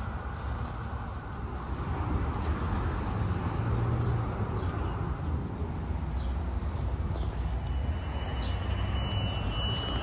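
Steady outdoor background rumble, like distant traffic, with a few faint short high chirps scattered through it; a thin, steady high tone comes in near the end.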